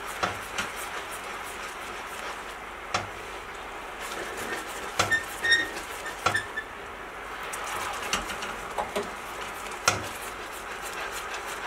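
Caramel sauce bubbling and foaming in a frying pan while a silicone spatula stirs it, with a few sharp knocks of the spatula against the pan. The foaming is the normal stage just after cream and hot water go into the melted sugar.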